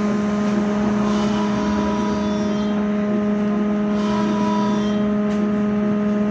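Inside a moving MAZ-203T70 trolleybus: a steady electric hum from its equipment, with a fainter whine above it that shifts in pitch, over road noise.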